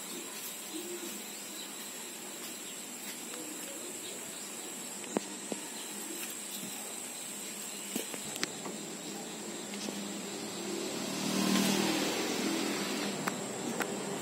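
Outdoor background noise: a steady hiss with a faint high whine and a few light clicks, and a vehicle passing that swells about eleven seconds in.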